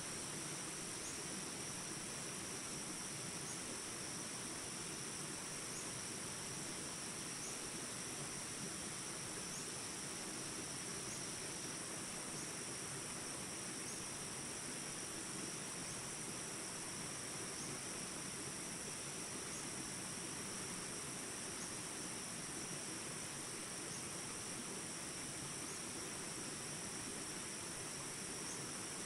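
Steady flowing water with a constant high insect chorus over it, and faint short chirps repeating about every second and a half.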